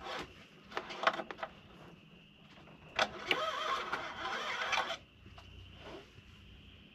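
Clicks and light scraping as the oil dipstick of a Ford 6.7L Powerstroke is worked out of its tube, then a longer rustling stretch of handling around the middle. A steady high chirp of insects runs underneath from about two seconds in.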